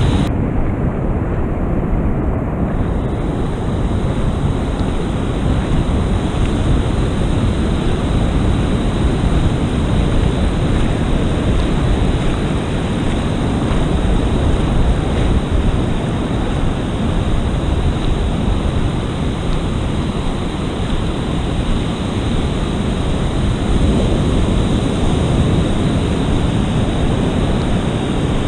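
Steady rush of wind buffeting the microphone over breaking surf and sea water, a loud low rumble with no pauses.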